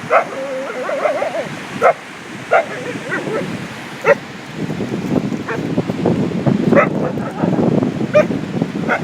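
A dog whining, then giving short, sharp barks and yips every second or so, with a rushing noise underneath in the second half.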